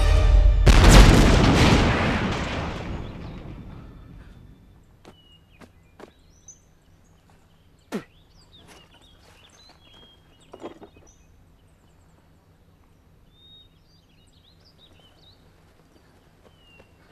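A landmine explosion about a second in, a loud blast that dies away over about three seconds. Then quiet, with birds chirping and a sharp knock near the middle.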